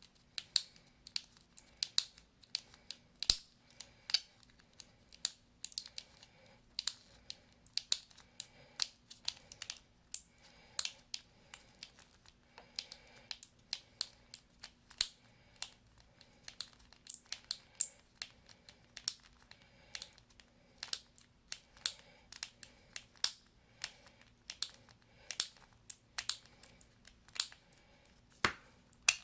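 Small repair tools tapping and clicking against an iPhone's case and parts, along with crinkling of the battery's adhesive strip as it is worked out, in quick irregular light clicks a few times a second.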